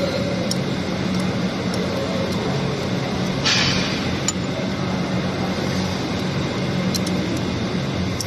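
Spanner working loose the 10 mm bolt on a motorcycle's timing-chain tensioner: scattered small metal clicks over a steady background hum, with a brief hiss about three and a half seconds in.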